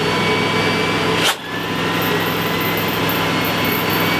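Homemade jet-engine combustor rig running: a loud, steady roar with a few thin, steady whining tones over it. About a second in there is a single sharp click and a brief dip, then the same running sound carries on.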